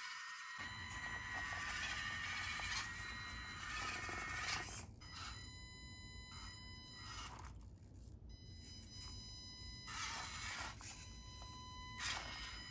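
Small electric motor of an SCX24 mini crawler whining steadily, with scraping noise; the whine stops and restarts several times.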